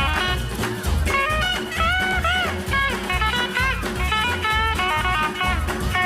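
Background music: an upbeat rock-and-roll style tune with guitar and a steady beat.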